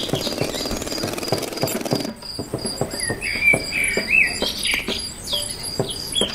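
Birds chirping in short rising and falling calls over a steady, rapid high pulsing like an insect, with a run of soft, evenly spaced ticks underneath. The sound changes abruptly about two seconds in, and the chirps come thicker after that.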